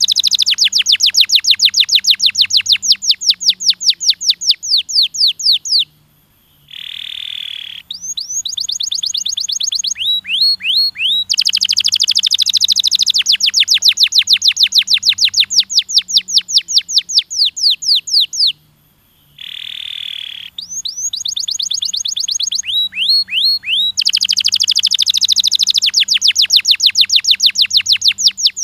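Domestic canary singing: long rapid trills of falling notes, about eight a second, twice broken by a short pause and a held buzzy note.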